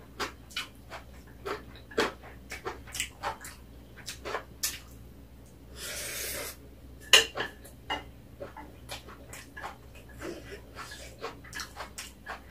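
Eating at the table: a metal spoon and chopsticks clicking and scraping on a ceramic plate, with close chewing sounds. About six seconds in comes a brief slurp as the spoon goes to the mouth, followed by a sharp clink, the loudest sound.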